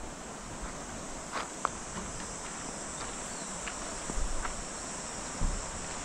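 Steady outdoor insect chorus, a continuous high buzzing, with a few short, faint high chirps. Wind rumbles briefly on the microphone about four and five seconds in.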